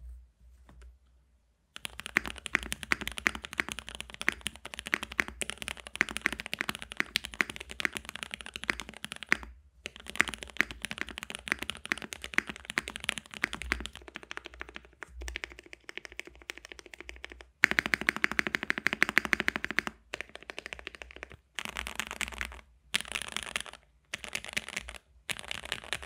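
Fast typing on a KBDFans Tofu65 aluminium-case mechanical keyboard with lubed and filmed Gateron Milky Yellow linear switches, O-ring mounted with foam in the case and clone GMK Olivia keycaps: a dense stream of keystrokes starting about two seconds in, broken by several brief pauses.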